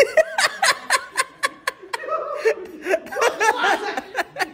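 Laughter: a quick run of short giggling bursts, about five a second, in the first two seconds, then looser chuckling.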